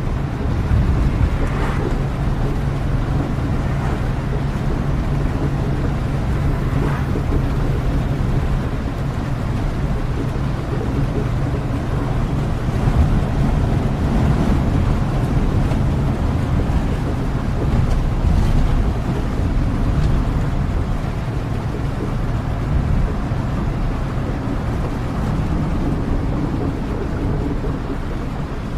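Steady rain with a continuous deep rumble beneath it.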